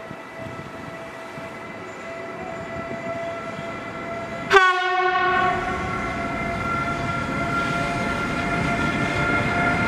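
Siemens Vectron electric locomotive hauling a freight train toward the platform, a steady whine and rolling noise growing louder as it nears. About halfway in it gives one short, loud horn blast, the loudest sound here.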